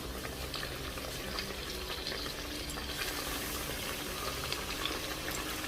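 Flour-coated chicken pieces deep-frying in hot oil in a frying pan: a steady sizzle with fine crackles.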